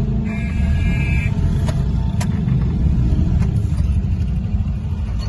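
Car driving slowly, heard from inside the cabin: a steady low rumble of engine and road noise. A high beep sounds for about a second near the start, and a few sharp clicks come later.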